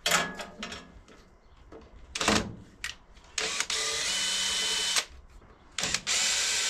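Cordless drill-driver spinning out the 10 mm bolts that hold a lawn tractor's cowl on, in two steady runs of about a second and a half each in the second half. Before the runs there are a couple of short clattering sounds.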